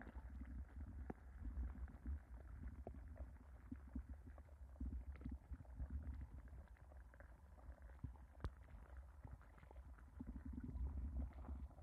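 Muffled, uneven low rumble of water moving around an underwater camera's microphone in a pond, with faint scattered clicks and one sharper click about eight seconds in.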